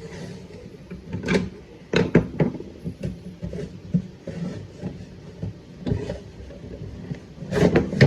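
Irregular clicks and knocks of a screwdriver and the cabinet of a Westinghouse H742T4 tube radio being handled as a screw is backed out and the case is opened, with a louder cluster of knocks near the end.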